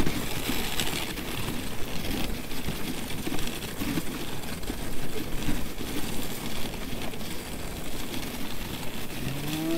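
Dog sled gliding along an icy, packed-snow trail behind a running dog team: the steady scraping hiss of the runners over the snow.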